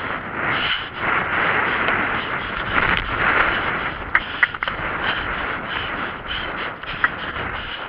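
Wind rushing over the microphone of a camera carried by a rider on a horse cantering cross-country. Under the wind, the horse's stride beats steadily, about two and a half times a second, with a few sharp clicks.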